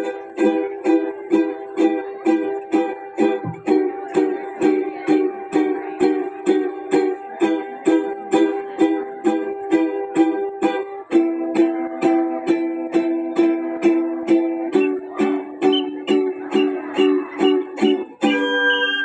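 Music: a strummed string instrument playing chords in a steady, even rhythm of about two to three strokes a second. The chord changes about two-thirds of the way through and again shortly after.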